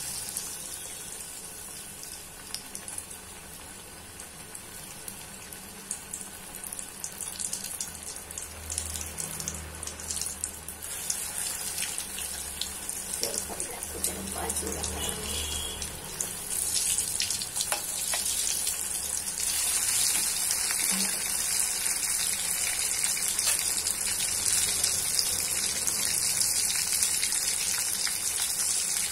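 Batter-coated potato vadas deep-frying in hot oil in a steel kadhai: a steady sizzle with fine crackling that grows louder, stepping up about two-thirds of the way in.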